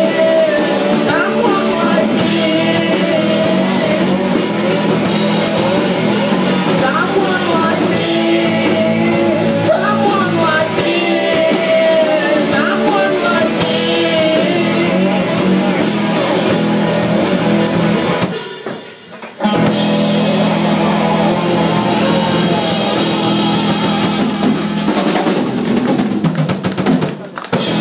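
Live rock band playing: drum kit, electric bass and electric guitars, with a melody line bending in pitch over the top. The band breaks off for about a second two-thirds of the way through, comes back in, and the song ends near the end.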